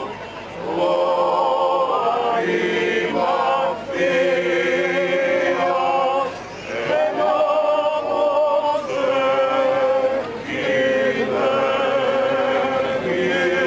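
Greek Orthodox Byzantine chant for the Epitaphios procession: men's voices sing a hymn in phrases of a few seconds, with long held notes and short breaks between phrases.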